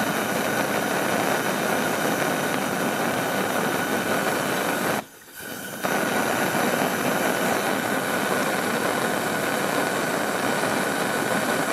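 Coleman 200A white-gas pressure lantern burning with a steady hiss, which cuts out briefly about five seconds in before coming back. The lantern is pulsing, a fault its owner does not like.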